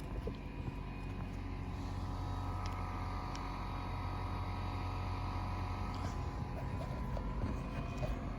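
An engine running steadily, a low hum with a few steady tones, slowly growing a little louder over the first few seconds.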